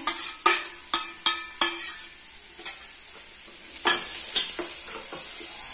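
Chopped onions tipped from a steel plate into hot oil in a non-stick pan and stirred with a wooden spatula. A run of sharp knocks and scrapes comes in the first two seconds. About four seconds in, a steady sizzle starts as the onions begin to fry.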